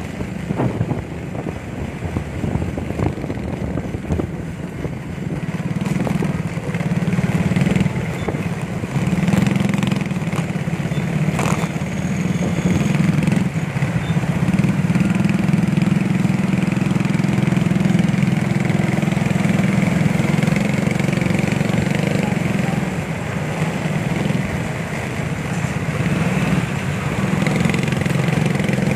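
Small motorcycle engine running steadily while riding in slow traffic.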